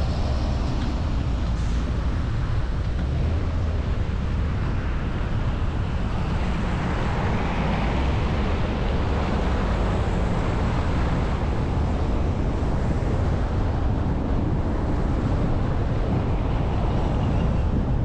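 A car driving on a wet, slushy road, heard through a camera mounted outside the car: steady tyre hiss and road rumble with wind buffeting the microphone.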